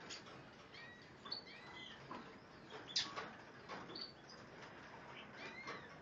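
Several caged canaries and finches giving short, scattered chirps and whistled call notes, with one sharper, louder note about halfway through.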